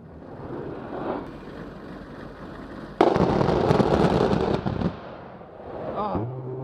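An A-10 Thunderbolt II's GAU-8 Avenger 30 mm rotary cannon firing one burst: a sudden ripping 'BRRRT' about three seconds in, lasting under two seconds. A short steady pitched hum follows near the end.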